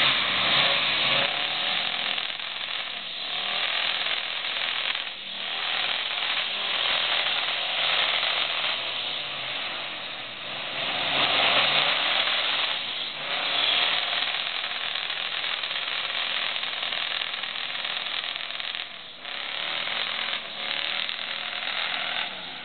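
Lifted four-wheel-drive truck's engine running loud and rough under hard throttle as it churns through deep mud, revving up and easing off several times.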